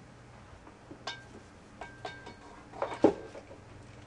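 A few light knocks and clinks of aluminum bottle-stove parts being handled and set down, the loudest about three seconds in, two of them ringing briefly. A faint steady low hum runs underneath.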